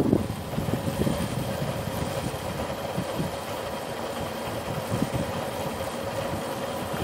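Two-wheeler's engine running steadily on the move, under road and wind noise.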